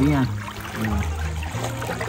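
River water flowing and lapping around a person wading in it, with background music playing underneath.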